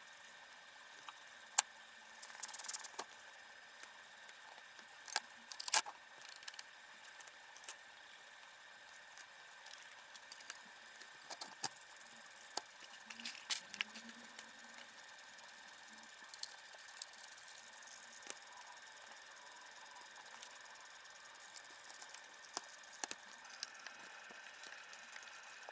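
Irregular light clicks and taps of small metal clock parts being handled, over a faint steady hiss. The sharpest click comes about six seconds in and a cluster comes near the middle.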